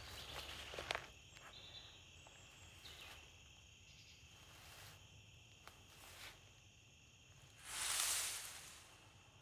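Faint forest ambience with insects chirring as two steady high tones, and a few rustling steps on the forest floor in the first second. About eight seconds in, a loud rush of noise swells and fades over about a second.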